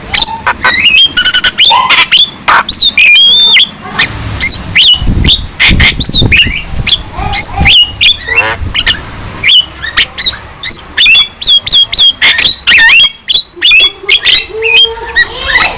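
Young Javan myna (jalak kebo) singing vigorously: a rapid, unbroken jumble of short whistles, slurred notes, harsh squawks and clicks.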